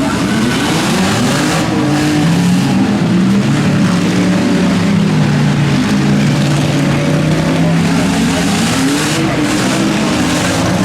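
Several demolition derby cars' engines running and revving together, their pitches rising and falling over one another.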